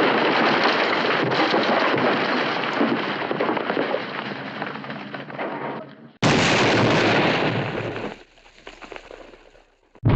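Explosion sound effects: a blast that rumbles and slowly fades over about six seconds, then a second sudden blast about six seconds in that dies away within two seconds.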